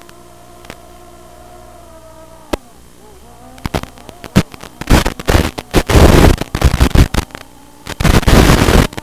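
Small FPV quadcopter's brushless motors (DYS BE1806 2300kv on Gemfan 5045 props) whining, the pitch swelling and easing with throttle. From about three and a half seconds in, loud harsh crackling bursts of noise break in again and again and drown out the motors.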